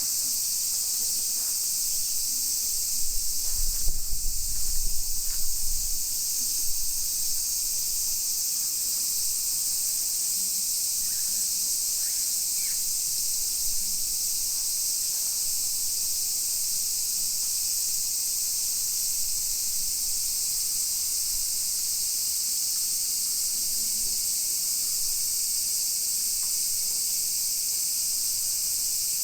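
A steady, high-pitched chorus of insects, with a low rumble and a few bumps between about three and seven seconds in.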